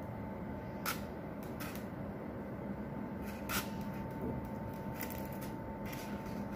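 Handling noise from hands shaping a dough figure on a styrofoam block: about five light clicks and taps, the sharpest about three and a half seconds in, over a steady background hiss and hum with a faint steady whine.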